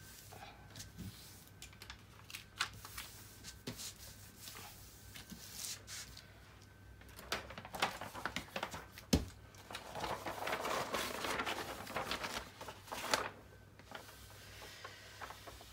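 Cover paper of a diamond-painting canvas rustling and crinkling as it is laid back over the glued canvas and smoothed down by hand, with scattered light taps and one sharper knock about nine seconds in.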